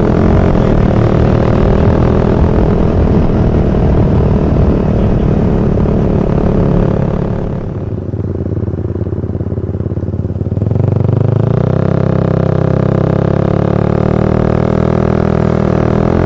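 Suzuki Satria FU's 150 cc single-cylinder engine running under way. About halfway through, the engine note drops away for a couple of seconds, then picks up again.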